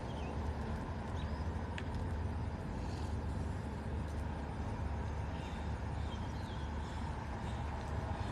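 Outdoor background: a steady low rumble, with a few faint bird chirps scattered through it.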